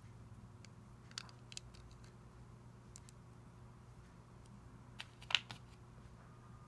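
Plastic Lego bricks clicking and tapping as they are handled and pressed onto a baseplate: a few small sharp clicks, the loudest a little past five seconds in, over a faint steady hum.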